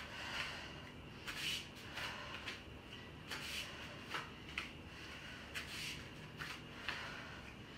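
A woman doing kettlebell lunges: short hissing breaths and soft scuffs from her bare feet on the tiles, coming once or twice a second over a faint low hum.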